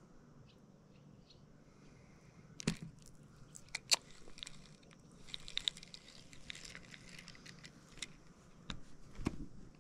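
Handling noise: irregular clicks, taps and rustles from a spinning rod and the camera being moved about, starting a couple of seconds in and running on to near the end, over a faint steady background.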